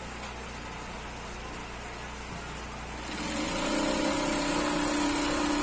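Electric sewing machine: a steady motor hum, then about three seconds in it runs louder and steadily as it stitches a long seam.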